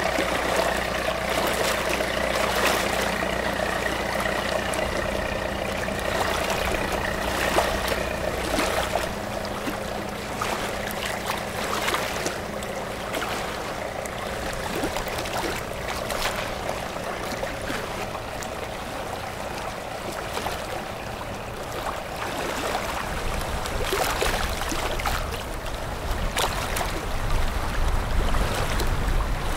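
Motor patrol boat running past on the river: a steady engine drone with a higher whine over the rush of its bow wave. The engine hum fades after about nine seconds, leaving the wash of water, and a low rumble builds near the end.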